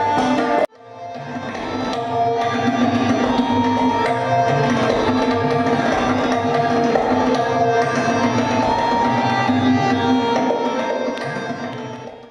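Tabla playing with harmonium accompaniment, the harmonium holding steady sustained notes under the drum strokes. The music cuts out abruptly about half a second in, fades back up, and fades out near the end.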